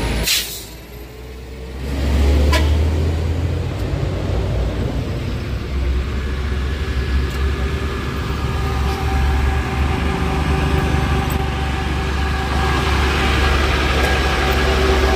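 Heavy road vehicles running in slow traffic: a deep, steady engine rumble, with an engine's steady hum coming in about six seconds in. A sharp click sounds right at the start.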